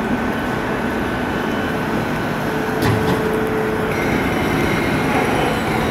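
Renfe Cercanías electric commuter train rolling slowly in towards the platform: a steady rumble with faint high whining tones, and a single clack about three seconds in.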